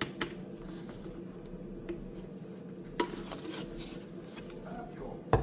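A few light clicks and knocks over a faint steady hum, the loudest knock near the end.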